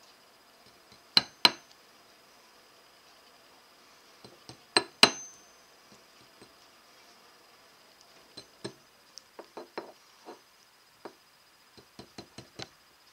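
Small jeweler's hammer striking a small piece of wire on a jewelry anvil: two pairs of hard metal-on-metal blows, about a second and about five seconds in, the second pair leaving a brief high ring, then a run of lighter, quicker taps.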